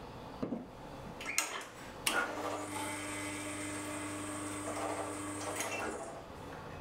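Two short knocks, then a small electric motor runs steadily for about four seconds, a low hum with a faint high whine, and stops.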